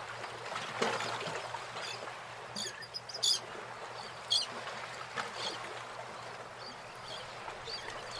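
Scattered faint bird chirps, short and high, over a steady soft background hiss.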